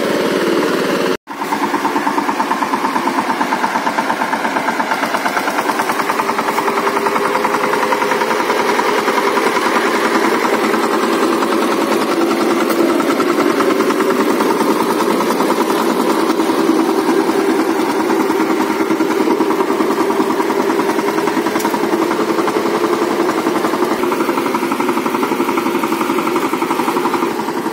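VST Shakti 130 DI power tiller's single-cylinder diesel engine running steadily with a rapid, even beat. The sound cuts out abruptly for a moment about a second in.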